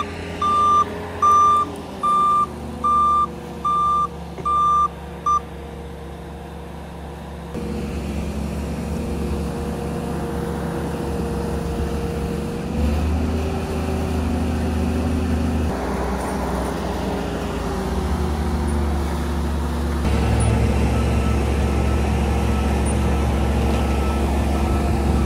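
A heavy vehicle's backup alarm beeps steadily, about once every three-quarters of a second, and stops about five seconds in. A heavy engine runs throughout, rising and shifting pitch a few times.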